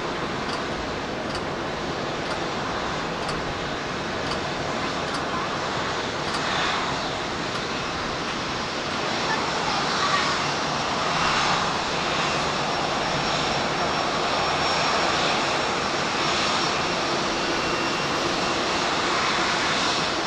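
Boeing 787-8 Dreamliner's Rolls-Royce Trent 1000 engines running at taxi power, a steady jet rush and whine that grows somewhat louder about halfway through as the aircraft nears.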